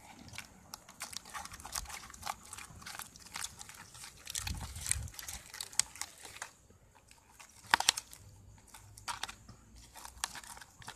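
Thick glue-and-saline-solution slime being stirred with a plastic spoon in a plastic cup: irregular sticky clicks and pops, with a low thump about four and a half seconds in and the loudest cluster of clicks near eight seconds. The slime is nearly done, sticking to itself rather than to the sides of the cup.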